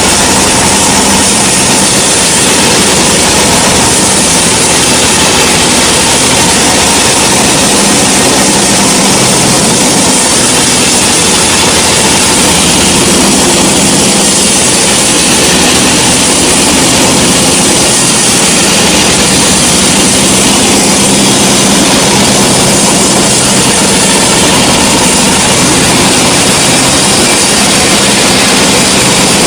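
Sawmill machinery running steadily: an even, loud mechanical noise with a constant hum under a broad hiss, without pause.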